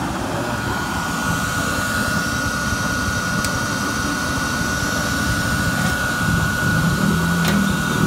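Electric blower on a homemade carbon-breaker burner running, a steady whirring rush with a thin high whine. A lower hum grows louder over the last two seconds.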